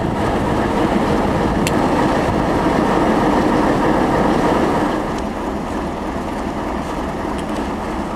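Steady rumbling noise that eases slightly about five seconds in.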